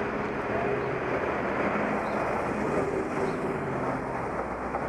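Steady vehicle noise, engine and road sound, while travelling in traffic.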